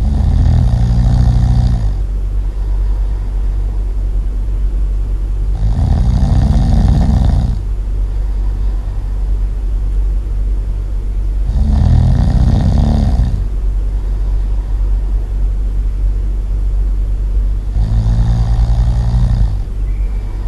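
Loud snoring: four long snores about six seconds apart, each lasting nearly two seconds, over a steady low hum.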